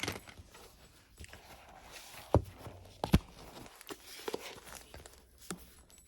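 Uni-ball pen being tried out on paper: soft scratchy writing strokes with small clicks of handling, and two louder knocks against the desk near the middle.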